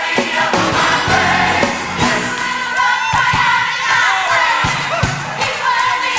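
Live gospel music at a church service: a group of voices singing with a band, drums beating throughout.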